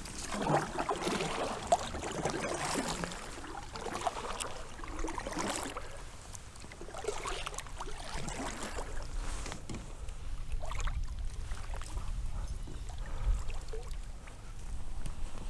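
Kayak moving on water: irregular splashes and drips, with small knocks against the hull, coming in bursts a second or two apart in the first half, then a low rumble.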